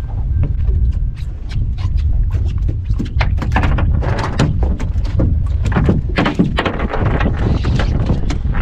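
Boat under way: a steady low rumble of motor and wind on the microphone, with many sharp knocks and clatters throughout, like hull slaps and gear rattling.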